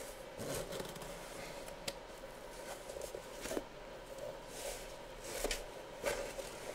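Hands sliding over and handling a cardboard box: a string of soft scrapes and rustles with a sharp click about two seconds in.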